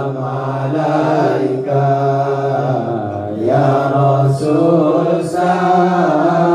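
Men's voices chanting Islamic sholawat (Serakalan devotional singing), with long drawn-out notes that slide and step between pitches without a break.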